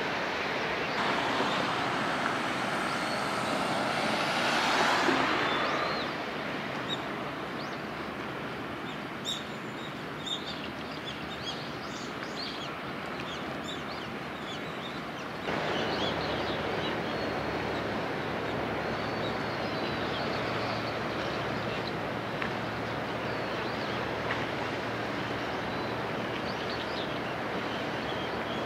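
Steady outdoor background noise with small birds chirping again and again. A louder rushing swell comes and goes in the first few seconds, and the background noise steps up about halfway through.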